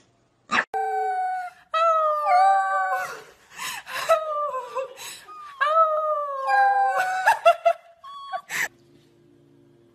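Corgi puppy howling: a string of long, wavering, high-pitched howls that slide down in pitch, breaking into short yips near the end before stopping.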